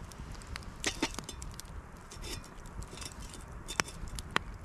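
Twigs and brush crunching and snapping as they are handled in snow, with scattered sharp snaps; the two sharpest come near the end, over a low rumble.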